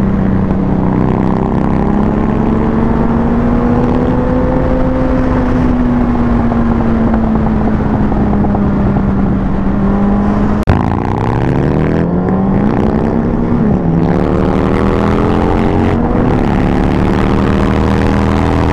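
Motorcycle engine, an inline-four Suzuki Hayabusa, heard from the rider's seat with wind rushing over the microphone. For about ten seconds it holds a steady pitch at cruising speed. After a sharp click, the revs rise and fall repeatedly, the pitch climbing and dipping as the bike accelerates.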